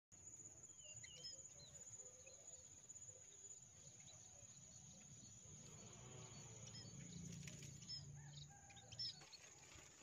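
Faint, scattered high chirps of small munias (emprit), over a steady high-pitched hum.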